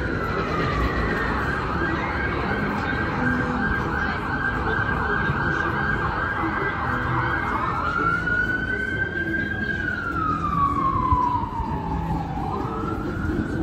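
Emergency vehicle siren: a slow falling wail that switches to a fast yelp for about six seconds, then wails up and down again. Steady street traffic rumble underneath.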